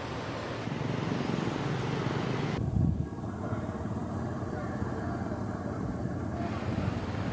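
Wind rumbling and buffeting on the camera microphone outdoors: an uneven low rumble that swells irregularly. The background changes abruptly about two and a half seconds in.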